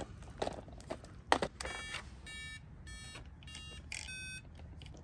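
An RC car radio transmitter that has just been switched on gives a row of about five short electronic beeps, repeating roughly every 0.6 s, after a couple of light clicks.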